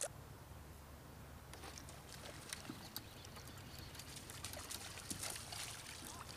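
Faint small splashes and trickling water as a hooked fish is reeled in to the kayak, with scattered ticks that grow busier after the first second or so and a splash as the fish reaches the surface near the end. A low steady hum runs underneath.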